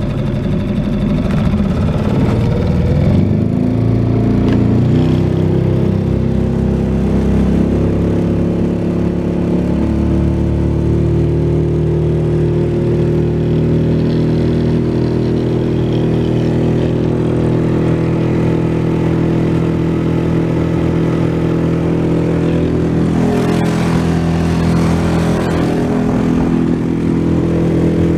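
Suzuki DF6AS 6 hp, 138 cc four-stroke outboard motor opening up under throttle. Its pitch climbs in steps over the first several seconds as the boat gathers speed, then it runs steadily at high revs.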